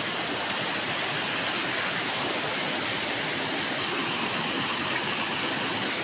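Steady rush of water tumbling over rocks at a waterfall, an even unbroken hiss.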